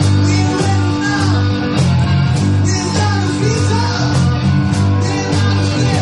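A live rock band playing a blues number: guitar lines with bending notes over a steady bass and drums with regular cymbal strokes.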